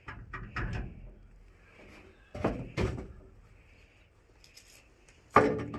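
Hammer blows on the steel pin at the top of a dump truck's hoist cylinder, driving it out: a few light knocks, two heavier strikes about two and a half seconds in, a pause, then a loud strike near the end.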